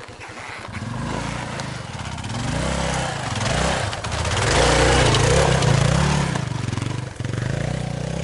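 Yamaha Serow trail bike's single-cylinder engine running slowly, then pulling away under throttle about a second in, the revs rising and falling. It is loudest around the middle and eases off briefly near the end before picking up again.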